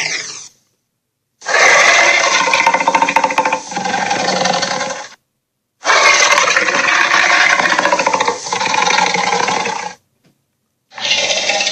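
Cartoon monster roar sound effect: a loud growling roar heard three times. It starts about a second and a half in, breaks off abruptly into dead silence, and the gaps fall near the middle and near the end.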